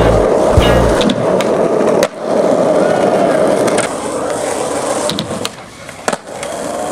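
Skateboard wheels rolling on rough asphalt, a steady grinding roll broken by a few sharp clacks of the board hitting the ground, the loudest about two seconds in and near the end.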